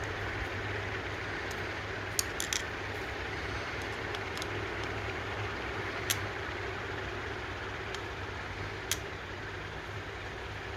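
Steady low hum of the workshop with a few sharp, light clicks of small metal parts being handled while a lawn mower carburetor is taken apart: a pair of clicks about two seconds in, another near the middle and one more later on.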